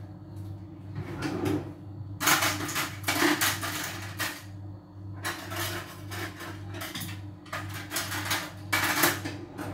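Dishes and cutlery clattering as they are handled, in bursts about two seconds in, again about five seconds in and once more near the end, over a low steady hum.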